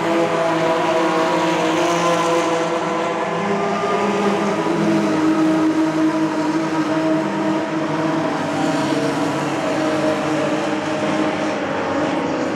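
Classic racing car engines running at fairly steady revs, several engine notes layered together, a little louder around the middle.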